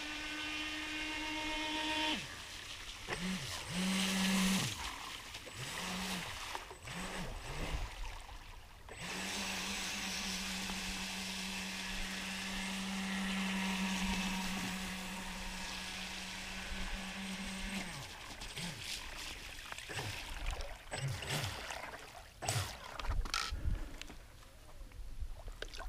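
Pro Boat River Jet 23 RC jet boat's electric motor and jet drive whining. A steady whine dies away about two seconds in, then comes a few short throttle blips, then a long steady run for about nine seconds before it cuts off. Near the end come a few knocks as the boat is taken out of the water by hand.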